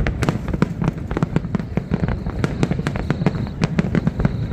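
Fireworks display: aerial shells bursting and crackling in a rapid, unbroken barrage, several sharp bangs a second.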